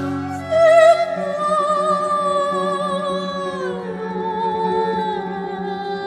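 Chinese-Western chamber ensemble playing a slow passage: a sustained melody line with vibrato glides down about halfway through, over a held low note. A brief louder note sounds just before the one-second mark.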